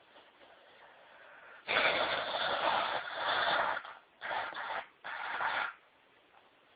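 Wet nose blowing into a soft tissue: one long blow of about two seconds, then two shorter blows.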